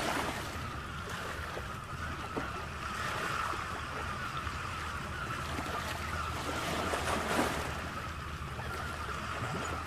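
Ocean surf washing steadily, with swells near the start and about seven seconds in.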